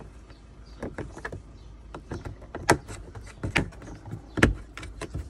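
Hard plastic knocking and creaking as the hollow plastic leg tube of a kids' slide is pushed and worked into a moulded plastic bracket, trying to snap it into place. A handful of irregular sharp knocks, the loudest about two and a half and four and a half seconds in.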